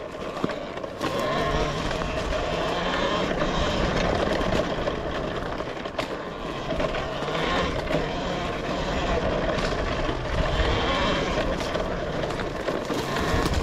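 Talaria Sting electric dirt bike riding fast over a dirt trail: a rush of wind and tyre noise over a faint motor and drivetrain whine, with scattered sharp knocks as the bike goes over bumps.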